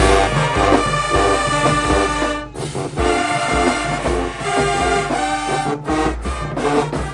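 Marching band playing: brass horns over a heavy low drum beat, with a short break about two and a half seconds in.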